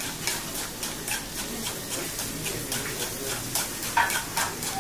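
Kitchen scissors snipping boiled lamb-head meat into a metal ladle, about three cuts a second, with a louder click about four seconds in.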